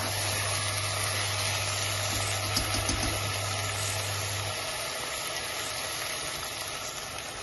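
Green beans, onion and tomato sizzling as they stew in a pot, with a steady low hum that cuts off about halfway through.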